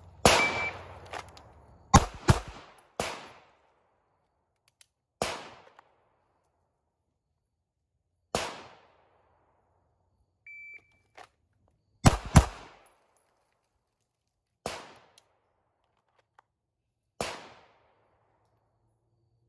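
Gunshots at a shooting range: about ten sharp reports at irregular intervals, some in quick pairs, each ringing out briefly. A short beep sounds about ten and a half seconds in.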